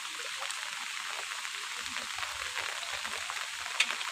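Steady hiss of heavy rain falling on flood water, with a few soft low sloshes of wading about halfway through.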